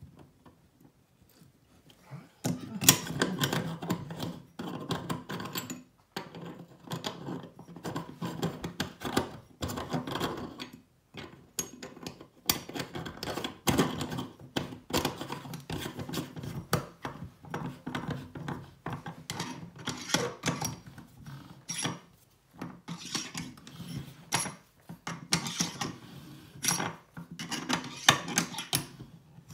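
Chrome metal parts of an Oras bathroom tap clicking, scraping and rattling as they are handled and fitted back together by hand, in irregular bursts starting about two and a half seconds in.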